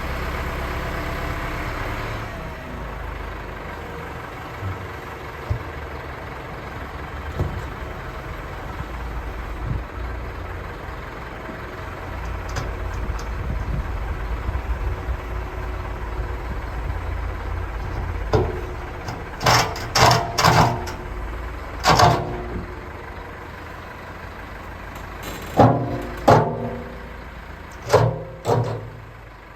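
Caterpillar 963 crawler loader's diesel engine running, easing off about two seconds in. From about eighteen seconds on, a string of loud clanks rings out, some in quick pairs.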